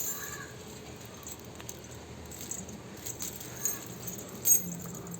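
Faint clicks and light jingling as two small dogs scuffle at play, with a few soft bumps about three and a half and four and a half seconds in.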